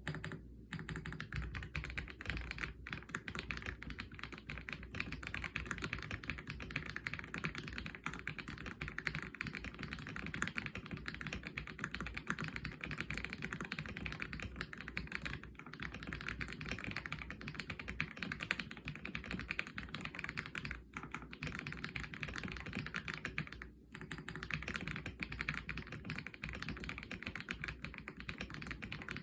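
Fast, continuous typing on an Aula F87 Pro mechanical keyboard with LEOBOG Seiya switches. The key presses run together in a dense stream of clicks, broken only by a few brief pauses.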